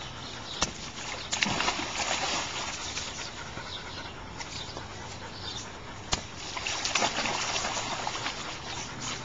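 Water splashing and sloshing in a small inflatable paddling pool as a dog plays in it, in two louder spells, with a couple of sharp knocks.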